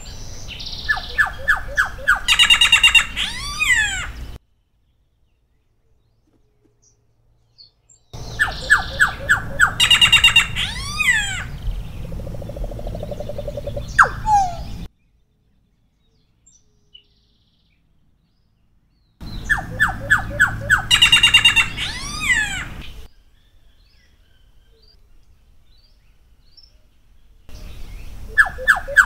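Solitary black cacique (Cacicus solitarius) singing: repeated phrases, each a quick run of evenly spaced notes followed by higher ringing notes and downward-sliding whistles, with pauses of about four seconds between phrases.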